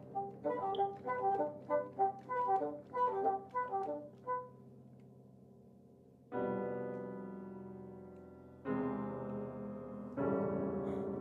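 Solo piano: a quick figure of short repeated notes, then three loud chords struck about six, eight and a half and ten seconds in, each left to ring and fade.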